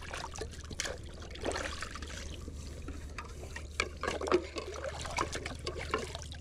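Water trickling and pouring, with scattered light knocks and clinks.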